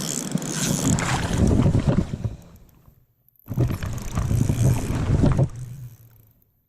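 Wind buffeting the microphone over rushing river water, the sound fading out to silence twice.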